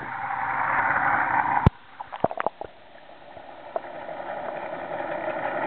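A camera going under the sea surface: a rushing of wind and water builds, then a sharp knock about a second and a half in as the sound suddenly turns muffled. A few clicks follow, then a dull underwater rushing and gurgling slowly grows louder.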